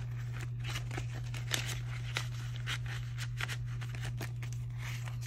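Paper bills and a clear plastic zip pouch rustling and crinkling in the hands as cash is stuffed into the pouch, with irregular small crackles over a steady low hum.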